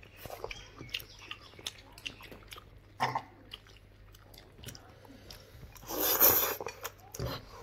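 A person eating noodles: chewing, with small clicks of a fork in a ceramic bowl, and about six seconds in a loud slurp as a forkful of noodles is sucked into the mouth.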